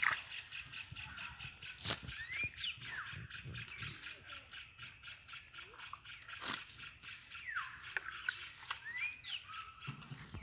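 Paddy-field ambience: many short falling chirps over a fast, steady ticking trill, with a few sharp wet splashes of hands working in the mud.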